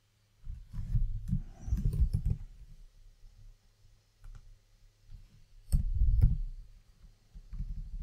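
Computer keyboard typing in three spells of rapid keystrokes: a long run starting about half a second in, a short burst near six seconds, and another near the end.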